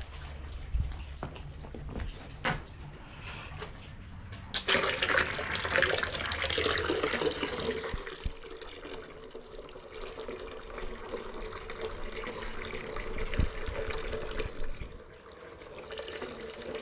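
Water from a garden hose running into a container such as a trough or bucket, starting with a strong rush about five seconds in and then running on more steadily, after a few knocks in the first seconds.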